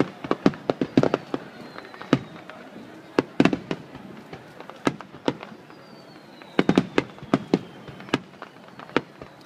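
Fireworks display: aerial shells bursting in quick clusters of sharp bangs and crackles, with short lulls between volleys and a faint falling whistle in between.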